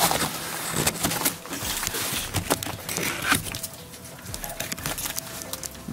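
Dry brush and twigs crackling and scraping as someone pushes through on foot, with steps crunching in dead leaves. The cracks are irregular, the sharpest about three seconds in.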